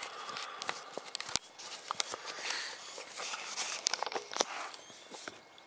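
Irregular light clicks and knocks with rustling: handling noise as the camera is moved around, with small movements in an inflatable kayak.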